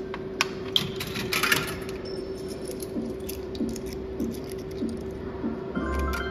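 A 1-euro coin going into a Cristaltec bar slot machine, clicking and rattling through the coin mechanism in the first second and a half, over the machine's steady hum. Then soft ticks about every half second as the reels stop one by one, and a short electronic win jingle near the end.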